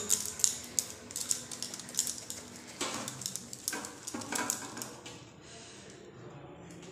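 Soft wheat dough being kneaded and pressed by hand in a stainless steel plate, with irregular light taps and clicks against the metal; the sounds thin out after about five seconds.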